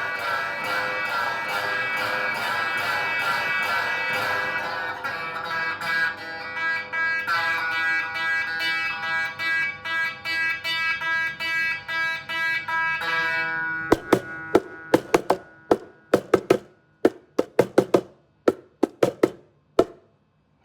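Instrumental backing music with plucked strings. A full, sustained accompaniment runs for about thirteen seconds, then gives way to single plucked notes one after another with short gaps, stopping just before the end.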